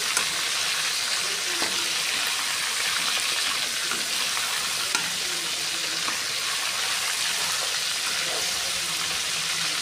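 Masala-coated whole fish sizzling steadily in hot oil in a kadai, with a few light clicks of a metal slotted spatula against the pan as the fish are turned.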